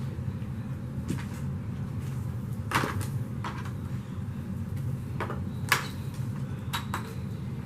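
Scattered short plastic clicks and knocks from handling a newly assembled Hoover upright vacuum, about seven in all, the two loudest near 3 and 6 seconds in, over a steady low hum.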